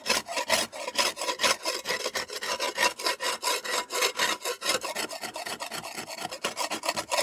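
A long-handled debarking spade scraping thick, loose layers of old lime off a wattle-and-daub wall panel, in quick short rasping strokes of several a second. The loose lime is being stripped back to the sound old lime beneath before the panel is repaired.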